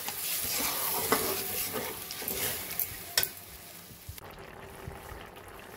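Boiled chicken and its cooking water sizzling in hot oil and fried onions in a kadai, stirred with a few sharp clinks of a utensil on the pan, the loudest a little past three seconds in. The sizzle drops much quieter about four seconds in.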